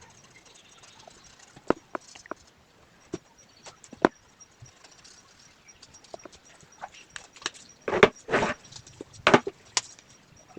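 Scattered sharp taps and clicks, then a few louder scratchy strokes near the end, from coloring tools working on paper.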